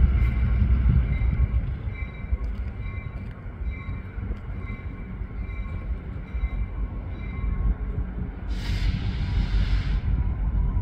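Diesel locomotive of an East Penn Railroad freight train approaching slowly, its engine and rolling cars making a steady low rumble with faint high squeals on and off. A hiss lasting about a second and a half comes in near the end.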